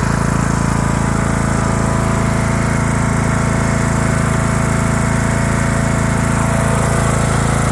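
Craftsman LT3000 riding lawn tractor engine running steadily at an even speed.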